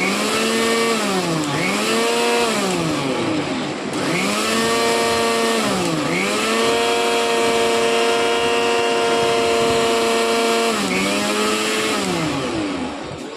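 Electric mixer grinder motor running at high speed with a steady whine. Its pitch sags and climbs back up about four times, about 1.5, 3, 6 and 11 seconds in.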